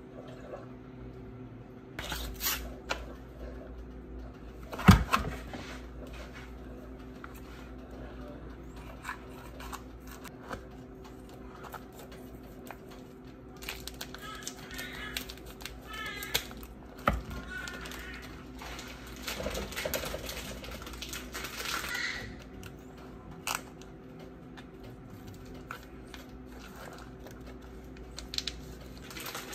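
Kitchen handling sounds over a steady low hum: scattered knocks and clatters, the loudest a sharp knock about five seconds in, then kitchen scissors snipping and crinkling a vacuum-sealed plastic sausage package.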